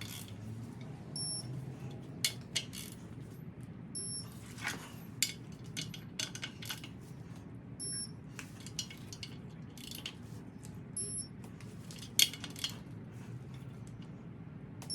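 Metal clicks and clinks of a wrench working on the clutch pressure plate bolts as they are torqued to 52 foot-pounds, over a low steady hum. Short high beeps sound every few seconds.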